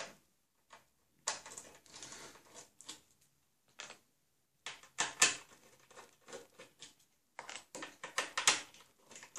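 Torx screwdriver turning out the screws that hold the feet of an iFi Retro Stereo 50 amplifier: irregular small metal clicks and scrapes in three short bursts, with pauses between.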